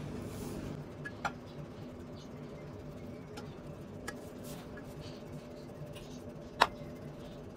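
Silicone pastry brush dabbing melted fat over rolled pastries in an aluminium baking tin: soft, faint brushing with a few light clicks, the sharpest a little before the end, over a low steady hum.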